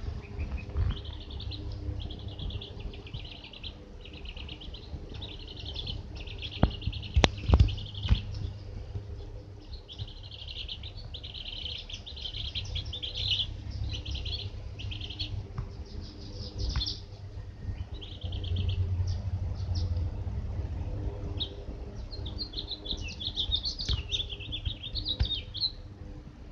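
Young chicks and ducklings peeping in short, rapid high trills, over and over, with some higher gliding peeps near the end. A steady low hum runs underneath, and a few sharp knocks about seven seconds in are the loudest sounds.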